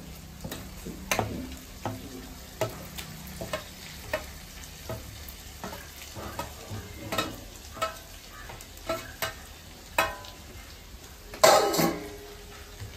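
Garlic and ginger paste frying in hot oil in a cooking pan, stirred, with the spoon scraping and knocking against the pan at irregular moments. There is a louder burst of sound about eleven and a half seconds in.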